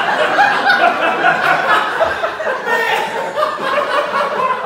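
A roomful of people laughing, loud and sustained, with many voices overlapping.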